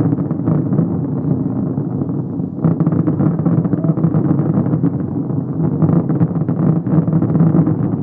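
Distant fireworks barrage: a continuous low rumble of bursts thick with crackles and pops, easing briefly about two and a half seconds in, then building again.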